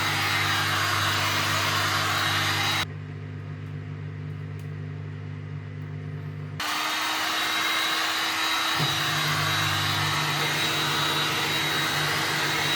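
Electric heat gun running, a steady blowing rush over a low motor hum, as it softens the butyl sealant holding a headlight lens. It cuts off sharply about three seconds in and starts up again a few seconds later.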